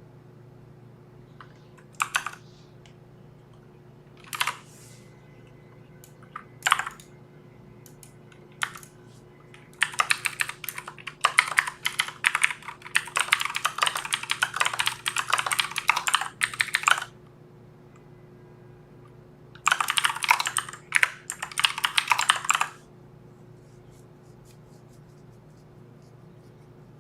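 Typing on a Filco Majestouch mechanical keyboard: a few short bursts of keystrokes, then a fast run of typing lasting about seven seconds, a short pause, and another run of about three seconds.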